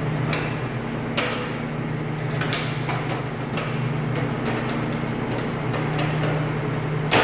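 Band saw's stainless steel table being shifted and fitted into place by hand: scattered metal clicks and knocks, ending in one loud clunk, over a steady low hum.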